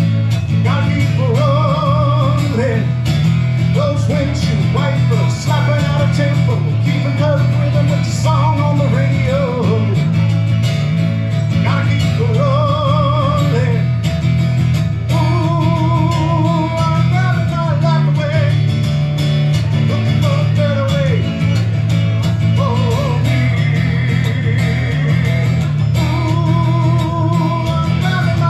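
Live singing with a strummed acoustic guitar, amplified through a PA, the voice holding notes with vibrato.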